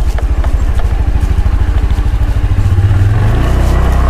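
Honda motorcycle engine running at low revs, with a fast, even low pulse, as the bike rolls slowly over a rocky dirt track; the revs rise a little about three seconds in.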